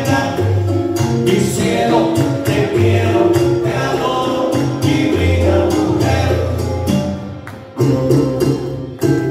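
A man singing into a microphone over Latin-style dance music with bass and percussion. The music sags briefly about seven seconds in, then picks up again.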